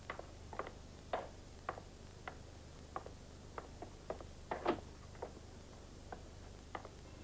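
Footsteps on a hard floor, sharp uneven steps at about two a second, with a steady low hum underneath.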